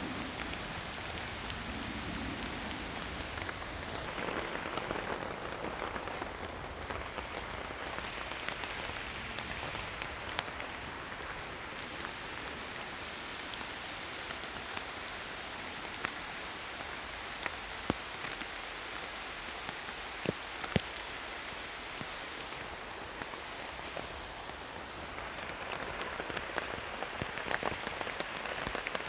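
Steady rain falling through forest trees, with scattered sharper taps.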